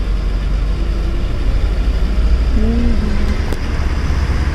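Inside the cab of a BharatBenz 4023 truck, its diesel engine runs with a steady low rumble under road noise as it rolls slowly. A light click comes about three and a half seconds in.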